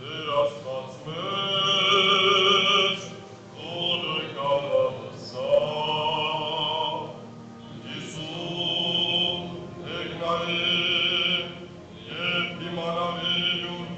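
Male voices chanting an Armenian Church liturgical hymn, sung in phrases of a few seconds with short breaks between them.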